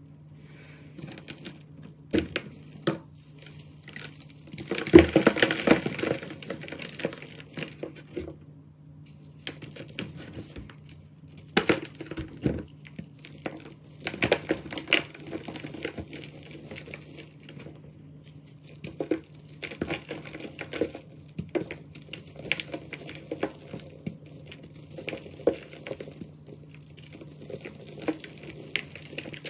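Hands crushing a glitter-coated block of gym chalk, the block cracking and crumbling into powder with crunching and sharp snaps. The densest crunching comes about five seconds in, when the block breaks apart.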